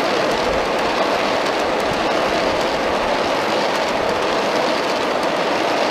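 A long string of 1/29-scale Aristo 100-ton coal hopper cars with oiled steel wheels rolling steadily over 45 mm garden-railway track: an even rolling noise of metal wheels on rail, with faint clicks scattered through it.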